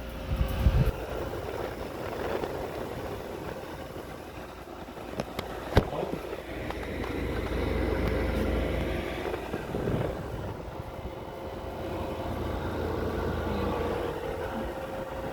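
Midea 5,000 BTU window air conditioner running with a steady hum, its fan and compressor going; a sharp click about six seconds in.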